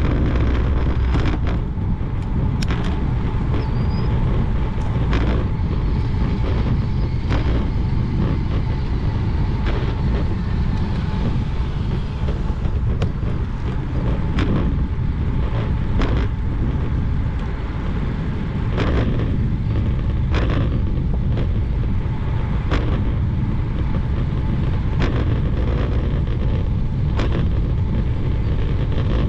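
Wind buffeting the microphone of a camera on a Specialized Roubaix SL2 road bike being ridden along, with a steady low tyre rumble and a sharp tick every second or two as the tyres cross seams in the path.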